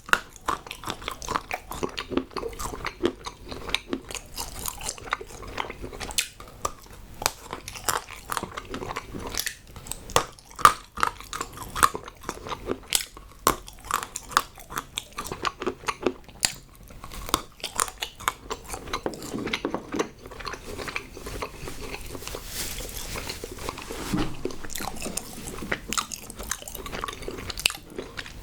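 Close-miked biting and chewing of hard moulded chocolate, with many sharp crunches and crackles throughout.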